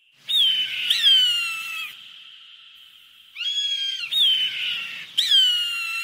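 A hawk screaming: five harsh calls, each sliding down in pitch, two close together in the first two seconds and three more in quick succession through the second half.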